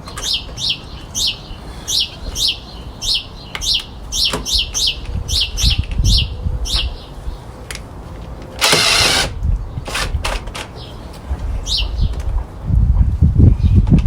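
A small bird calling over and over: short, high, falling chirps about twice a second, thinning out after about seven seconds. There is a brief hiss about nine seconds in and low rumbling near the end.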